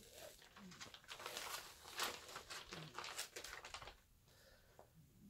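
Crinkling and rustling of a large diamond painting canvas and its protective cover sheet as it is handled and peeled back, a quick run of crisp crackles that thins out about four seconds in.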